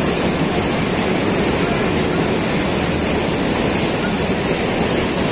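Mountain river rushing through whitewater rapids over large boulders, a loud, steady rush of water.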